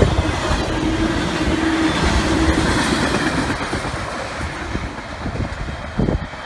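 Freight train cars rolling past on the rails, wheels clacking and rumbling, with a faint wheel squeal early on; the sound slowly fades toward the end.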